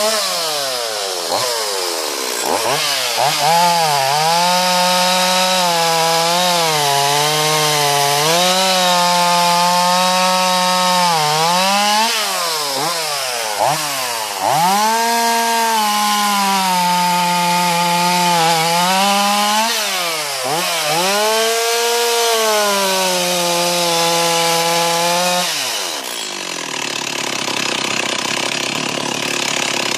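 Two-stroke chainsaw cutting wood at full throttle, its engine pitch sagging under load and rising again as the cut frees up, many times over. Near the end it is let off the throttle and falls back to idle.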